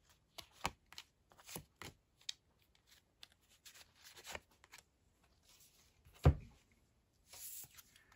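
A deck of tarot cards shuffled by hand over a table, with a run of short crisp slaps and riffles that thin out after a few seconds. About six seconds in there is a single louder thump as cards go down on the wooden table, and a short swish of a card sliding near the end.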